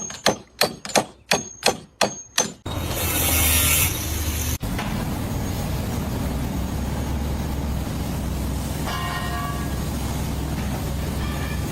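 About eight sharp metallic strikes, roughly three a second, like hammering on metal, followed by a loud hiss for about a second. After a sudden break a steady low engine rumble carries on.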